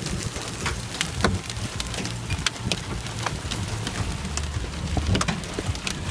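Hailstones striking the car body and windscreen in an irregular patter of sharp clicks, several a second, heard from inside the car over the low rumble of the moving car.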